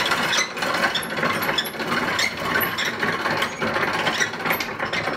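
Small hand winch ratcheting in a rapid stream of clicks as it is wound, hoisting a rope-hung platform loaded with a full carboy.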